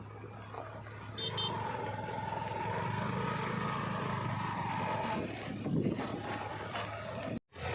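Heavy diesel machinery running, with a steady low hum that grows louder about a second in. A wavering high whine runs for a few seconds over it. The sound cuts out briefly near the end.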